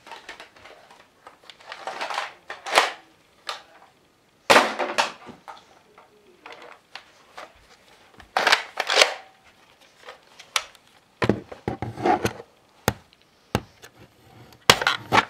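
Toy Nerf blaster with an orange revolving cylinder being handled, primed and fired: plastic clicks, clacks and short bursts. They come in separate clusters a few seconds apart.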